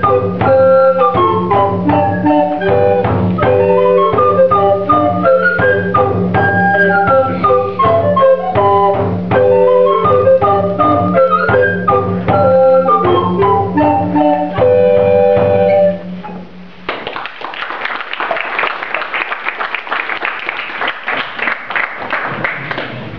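Recorder ensemble with a frame drum playing an early-music dance tune: several recorder lines move over a steady low drone and a regular drum beat. The music stops about 16 seconds in, and applause follows.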